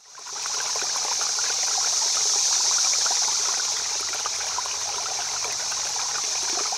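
Running water, like a flowing stream, a steady bright rush with small splashy crackles, fading in at the start and fading out near the end.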